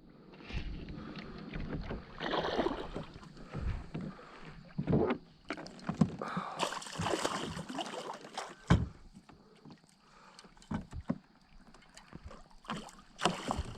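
Irregular knocks, scrapes and splashing on and around a fishing kayak, with a sharp knock about nine seconds in.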